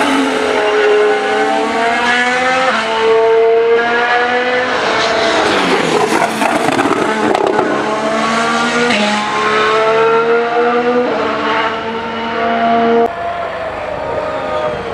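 Formula 1 cars' 1.6-litre turbocharged V6 hybrid engines running at speed on track, the pitch climbing and jumping in steps with gear changes. The sound drops sharply about thirteen seconds in.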